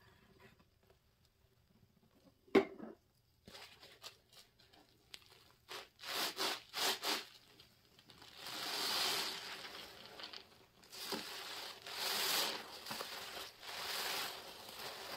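A large dish-soap-soaked sponge squeezed by gloved hands over a basin of suds: wet squelching with crackling, fizzing foam, coming in a few long squeezes in the second half. A single sharp click a little over two seconds in, the loudest moment.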